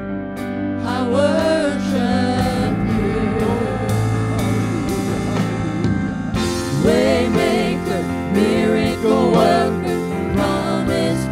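Worship song: voices singing a gospel melody over instrumental accompaniment, growing fuller about six seconds in.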